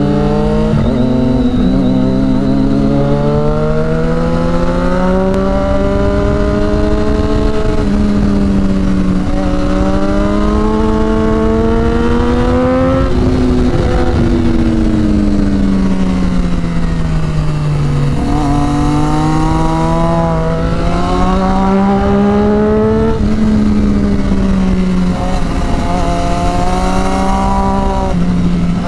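Sport bike engine at speed, heard from the rider's seat: the note climbs through the gears with a drop at each shift, then falls away in long stretches as the bike slows, over a steady rush of wind.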